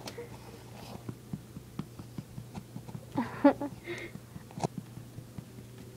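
Old dog lapping water fast from a bowl: a quick series of short wet clicks, about three or four a second, with one louder, pitched, wavering sound about three seconds in.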